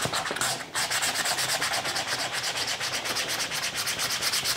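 Hand sanding with a small piece of sandpaper on the back of a Mini convertible roof chrome trim, in rapid, even back-and-forth strokes. It is a light buffing that roughens the surface so double-sided tape will stick.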